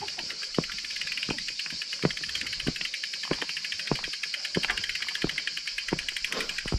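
Road bike's rear freehub ticking rapidly as the bike is wheeled along on foot, with evenly spaced footsteps about one and a half per second and a steady high insect drone behind.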